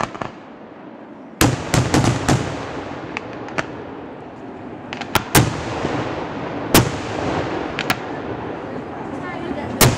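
Daytime festival fireworks: a loud, irregular string of aerial shell bursts and firecracker bangs, about a dozen sharp reports after a brief lull at the start.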